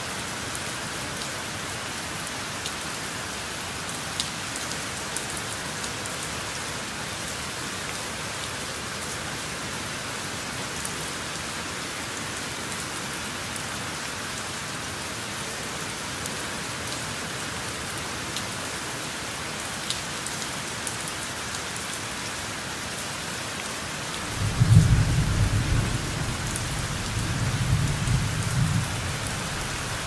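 Steady rain with a few scattered drop ticks. About 24 seconds in, a low rumble of thunder rolls for about five seconds, loudest at its start.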